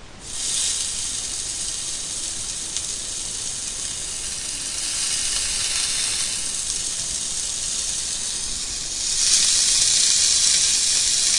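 Food sizzling in a hot frying pan: a steady, dense hiss that swells louder about nine seconds in.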